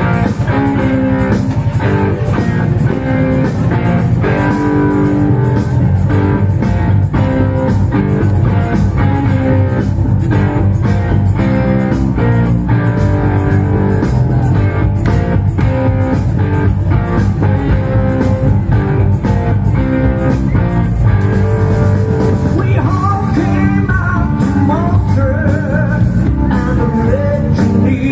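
Live rock music from a guitar duo on stage, played through the PA: guitars and bass over a steady beat. A voice starts singing near the end.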